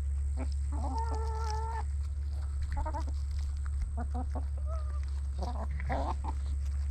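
Hens calling while they feed: one drawn-out squawk about a second in, then several short clucks, over a steady low hum.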